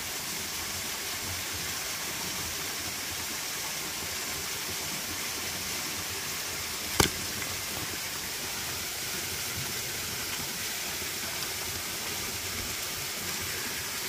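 Steady rush of a waterfall, with a single sharp knock about halfway through.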